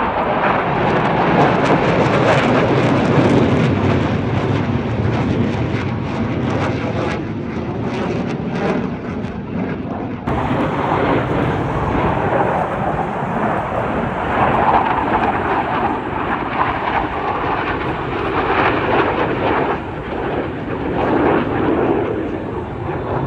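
Blue Angels F/A-18 Super Hornet jets flying past in a low demonstration pass, a loud continuous jet rumble and roar that swells and eases several times as the jets pass. The sound changes abruptly about ten seconds in.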